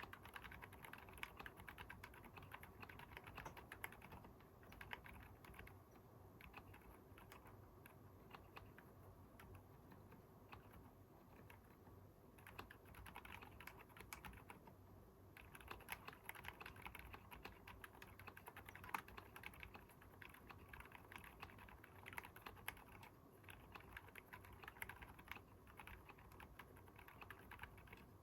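Quiet, muffled typing on a Keychron K10 aluminium keyboard with stock Haimu Seasalt silent switches, damped inside with bottom case foam and plate foam. Keystrokes run fast and steady, with short pauses twice around the middle.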